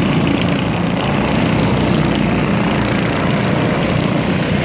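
Small engines of several junior sprint race cars running together on a dirt oval, a steady buzz.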